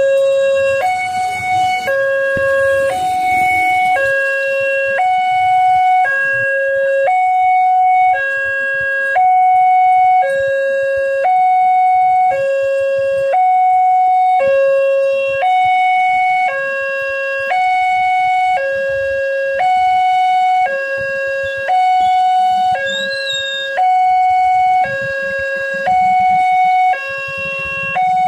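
Railway level-crossing warning alarm sounding its electronic two-tone signal: a lower and a higher tone alternate steadily, each held a little under a second. It signals that a train is approaching and the crossing barriers are down.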